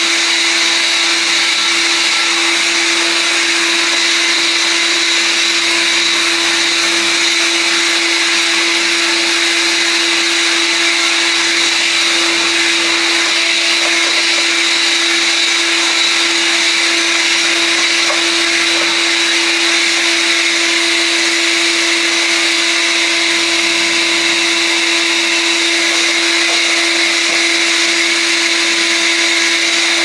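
AEG HX6-30STM cordless handheld vacuum cleaner running steadily, its motor giving a constant pitched hum over a rush of air as it sucks up loose dirt.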